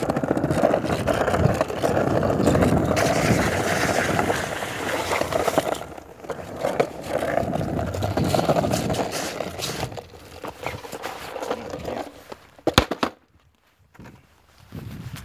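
Skateboard wheels rolling on pavement: a steady rough rumble that grows patchier and fades after about six seconds. Near the end come two sharp clacks close together.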